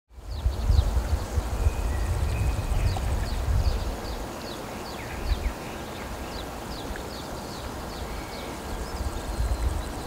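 Outdoor pond-side ambience: small birds chirping with many short, falling calls, over a low rumble that is heavier in the first few seconds and again near the end.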